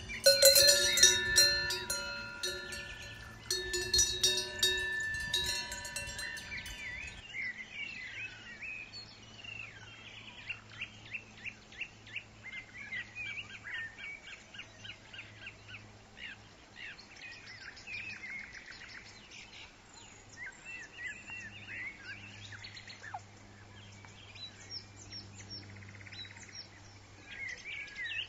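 Metal cowbells jangling and ringing with several overlapping tones for about the first seven seconds. Then many small birds chirp and sing in quick, repeated calls.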